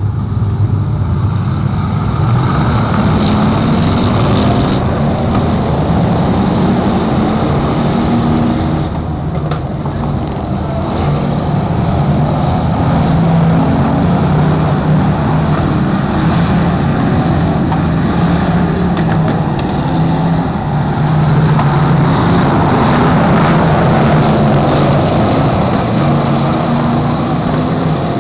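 A pack of dirt-track stock cars racing, their engines running hard and loud without a break, swelling several times as the field passes.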